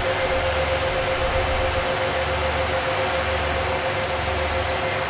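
File server's cooling fans running at power-on while the machine posts: a steady whir with a thin constant whine, over a low hum that swells and fades about once a second.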